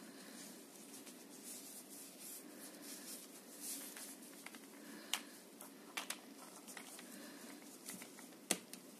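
A plastic head-mounted watch-repair magnifier being handled, with faint rustling and a few sharp plastic clicks, the loudest near the end as its LED lamps are switched on.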